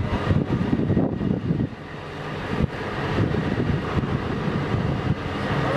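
Truck-mounted hydraulic loader crane running under load as it hoists a light aircraft, a low, uneven mechanical rumble that dips briefly about two seconds in.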